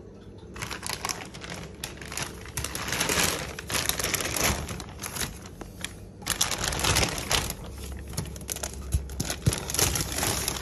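Packing material rustling and crinkling as it is handled in a delivery box. The rustling starts about half a second in, eases briefly about six seconds in, then picks up again.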